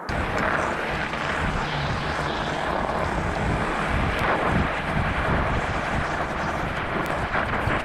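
Steady rushing of wind buffeting a handlebar-mounted camera on a moving fat bike, over the uneven rumble of its knobby tyre rolling on snow-covered lake ice.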